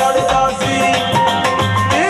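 Loud live Punjabi band music through stage speakers: a steady drum beat under a wavering melody line.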